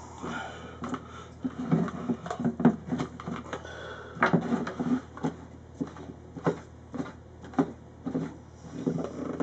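Irregular plastic clicks, knocks and rattles of a Hudson Handy hand-pump sprayer being handled as it is opened, its pump assembly worked loose from the plastic tank.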